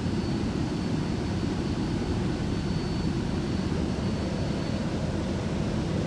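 Cabin noise of a Downtown Line C951 (Bombardier Movia) metro train running at speed through a tunnel: a steady low rumble, with a faint high whine that fades out about five seconds in.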